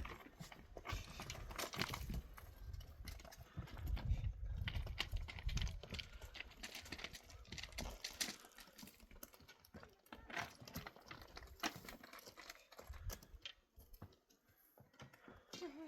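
Hooves clip-clopping in an irregular run of sharp knocks, with a low rumble under the first half that fades about eight seconds in.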